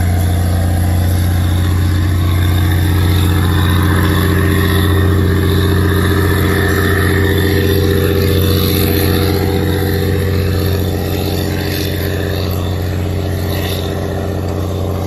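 Fishing boat's Cummins diesel engine, with a freshly replaced turbocharger, running steadily at speed under way on its test run. It eases off slightly about ten seconds in.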